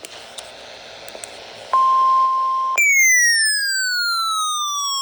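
Weather radio alert tones: after faint hiss, a steady tone of about 1 kHz (the weather radio warning alarm tone) sounds for about a second, then a second alarm cuts in and glides steadily downward in pitch, like a siren winding down.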